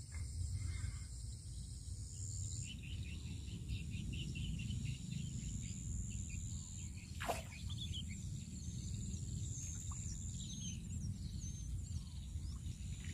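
Lakeside outdoor ambience: a steady high buzz of insects, a few bird chirps in the second half, and a low steady rumble. A single short sharp sound about seven seconds in is the loudest moment.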